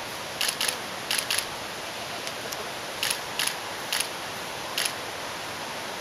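Sharp clicks, about eight of them, several in quick pairs, irregularly spaced over a steady hiss.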